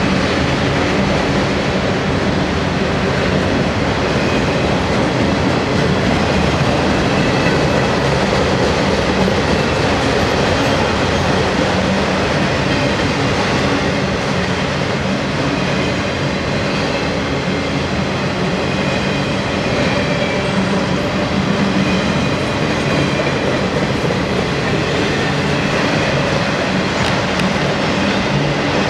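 Freight train of enclosed autorack cars rolling past at speed: a steady, loud rumble of steel wheels on rail.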